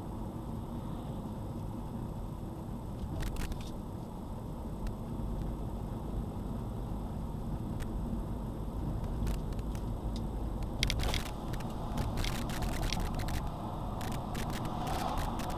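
Car driving, heard from inside the car: a steady low rumble of road and engine noise, with sharp clicks and rattles now and then from about three seconds in, coming more often in the second half.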